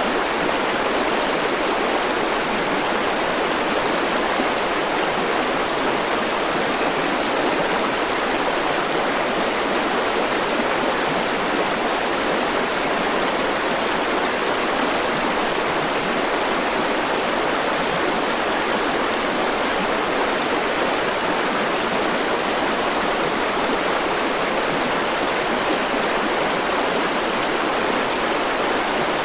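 Mountain river cascading over boulders in small waterfalls and white-water rapids: a steady, even rush of fast water.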